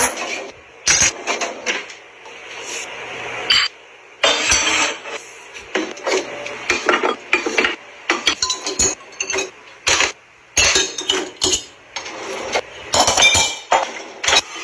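Kitchenware handled in quick succession, in a string of irregular sharp knocks and clinks: ceramic dishes and cups clinking in a drawer, wooden utensils clattering into a ceramic crock, and cabinet drawers sliding and knocking.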